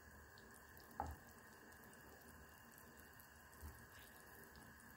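Pot of vegetable soup boiling, a faint steady bubbling, with one light knock of the ladle against the pot about a second in.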